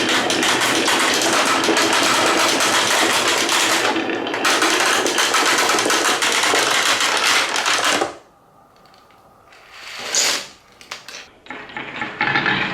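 Many marbles clattering down the wooden rails and slopes of a marble run, a dense stream of rapid clicks. It stops suddenly about eight seconds in, leaving a few scattered knocks, and starts again near the end.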